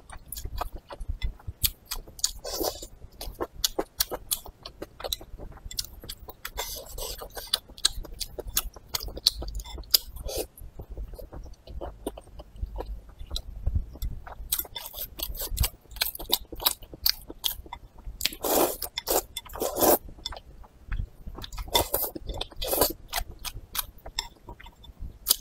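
Close-miked eating of noodles in broth: steady chewing with small wet mouth clicks, and a few louder slurps about three-quarters of the way through.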